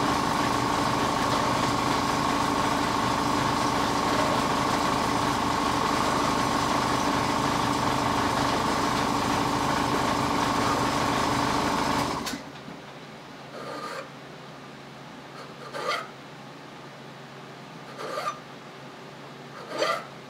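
A steady loud drone with a constant hum for about twelve seconds, cutting off abruptly. Then four slow strokes of a flat hand file on the welded steel end of an Ithaca Model 49-S rifle barrel, about two seconds apart, dressing the built-up weld back down.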